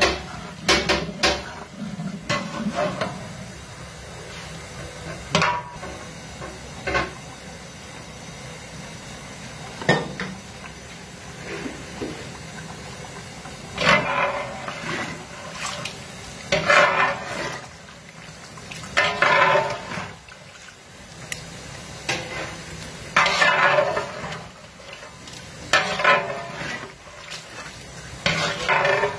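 A metal spoon or ladle scraping and stirring in a large pot of curry. There are a few light knocks at first, then from about halfway through a run of scraping strokes every two to three seconds, over a steady low hiss of the cooking.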